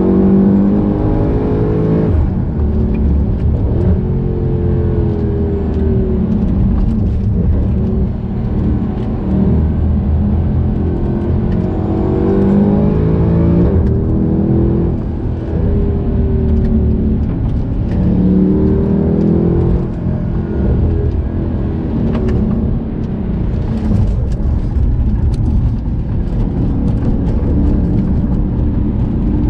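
Mercedes C63 AMG Edition 507's 6.2-litre V8 engine under hard driving, its pitch repeatedly climbing under acceleration and dropping back, over steady road and tyre noise.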